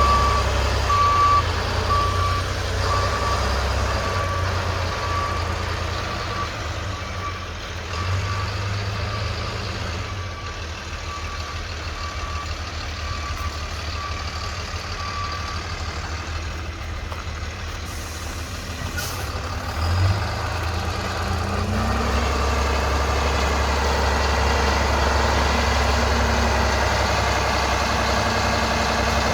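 A vehicle's backup alarm beeping in a steady series over its running engine; the beeps stop about halfway through, and the low engine rumble grows louder near the end.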